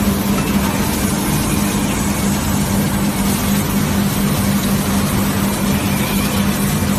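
Hot-forging screw press line machinery running with a steady, loud drone and a constant low hum.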